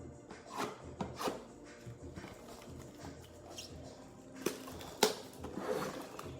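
Trading-card blaster box packaging being handled and opened: plastic wrap and cardboard crinkling and tearing in several short rustles and snaps, the loudest about five seconds in.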